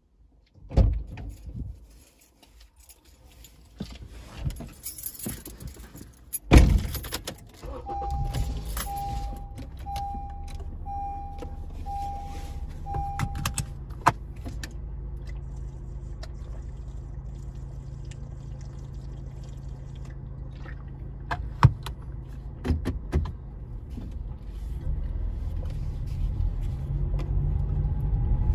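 Inside a Honda CR-V: a car door shuts with a loud thump, keys jangle, and the engine starts and idles while a warning chime beeps six times, about once a second. A couple of sharp clicks follow, and the engine picks up near the end as the car moves off.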